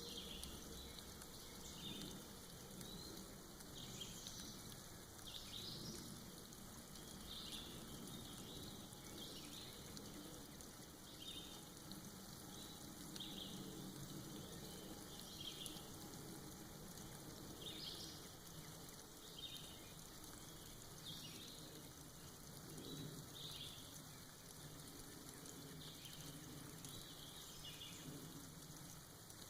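Soft rain falling and dripping off moss in a forest, a faint steady patter with short high-pitched ticks or chirps every second or two.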